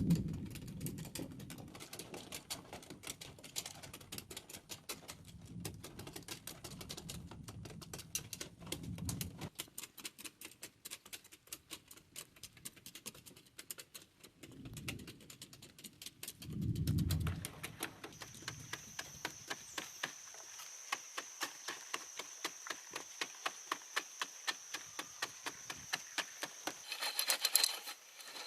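Rapid, light tapping clicks in long trains, with two dull thumps around the middle. A steady high-pitched whine joins about two-thirds of the way through.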